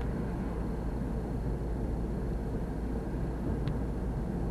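Steady low rumble of road traffic noise, with a faint tick about three and a half seconds in.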